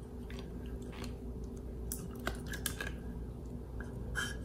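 Faint scraping and a few light, uneven clicks of a plastic measuring cup as mayonnaise is emptied out of it into a steel bowl of flour, over a steady low hum.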